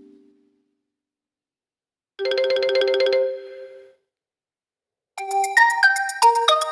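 OPPO A54 phone ringtones played one after another. The last of one tone fades out right at the start. About two seconds in comes a short electronic tone with a rapid warble on two notes lasting about a second, and about five seconds in a new melody of quick, bright notes stepping up and down begins and keeps going.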